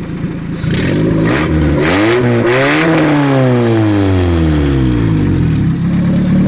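A car engine revs up, its pitch climbing for about two seconds, then winds back down over the next two and a half seconds and settles into a steady run.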